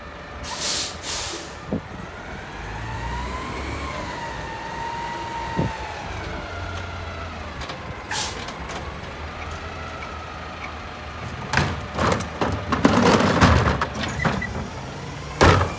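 Mack LEU garbage truck with a McNeilus front-loader body pulling ahead, its engine tone rising and falling, with air-brake hisses about half a second in and again as it stops about eight seconds in. In the last few seconds, loud clattering and knocks as a wheeled trash cart is rolled up to the carry can.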